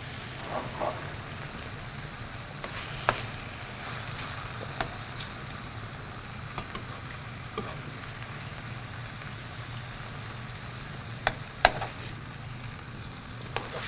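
Chicken cutlets sizzling steadily in hot oil in a sauté pan as they brown, with a few sharp clicks of a utensil against the pan.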